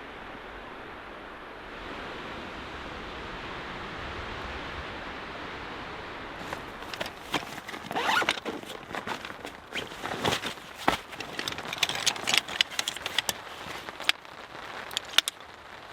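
Steady hiss of rain and wind. From about six seconds in it is joined by a run of irregular sharp taps, crackles and scrapes close by.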